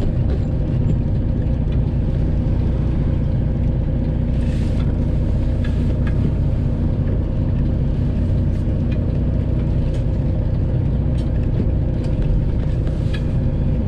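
Cab interior of a Freightliner Classic XL semi truck, its Detroit Diesel 12.7-litre Series 60 engine running with a steady drone, with a few faint clicks.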